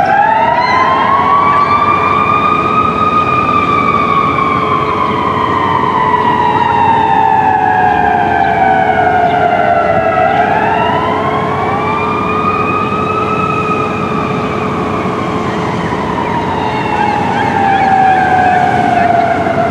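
Fire truck siren on a slow wail: it rises quickly, then falls slowly, in two full cycles. A fainter steady lower hum runs underneath.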